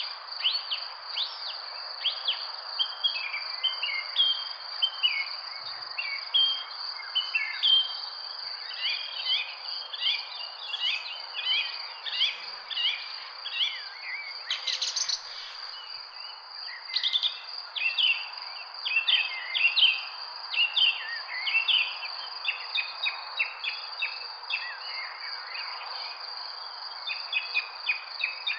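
Many small birds chirping and calling in quick short notes, over a continuous high-pitched insect drone and a steady background hiss.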